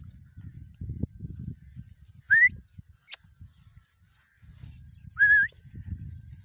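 Two short rising whistles, a little over two seconds in and again near five seconds in, the loudest sounds here, over low rustling of feet moving through crop and a single sharp click just after three seconds.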